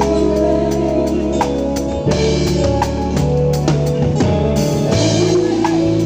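Live band music played loud on stage: a drum kit keeps a steady beat with cymbal strokes over held bass notes and chords.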